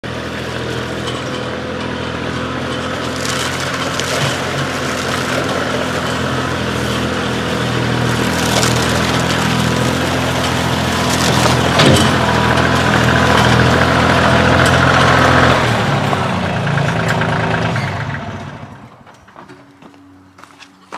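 Kioti CK2610 compact tractor's three-cylinder diesel engine running as the tractor drives closer, growing louder, with a single sharp clank about halfway. The engine drops in pitch about three-quarters through and then shuts off.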